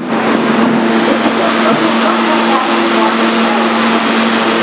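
Kawasaki R-143 subway train running: a steady low hum over loud, continuous rushing noise.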